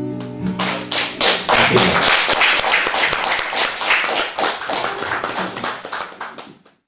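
The last strummed chord of a twelve-string acoustic guitar rings and dies away in the first second, and an audience claps, the applause fading out near the end.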